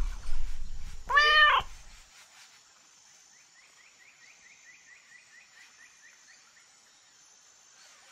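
A domestic cat meows once about a second in, a single call that rises then falls, over a low purr that stops about two seconds in. Faint high chirps, about four a second, follow for a few seconds.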